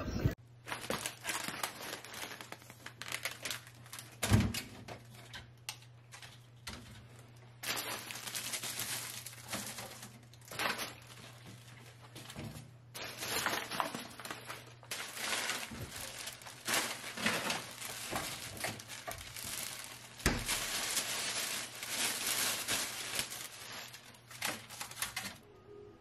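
Plastic grocery bags and produce wrapping crinkling and rustling in irregular bursts as groceries are unpacked into a refrigerator, with an occasional thunk of an item being set down. A steady low hum runs beneath.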